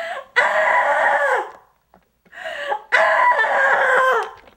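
A woman screaming in fright: two long, high screams, each preceded by a shorter cry.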